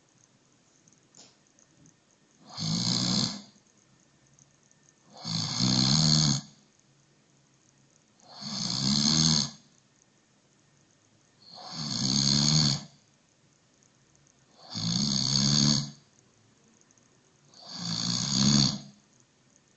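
A person snoring in sleep: six snores, about one every three seconds, each lasting about a second, with quiet breaths between.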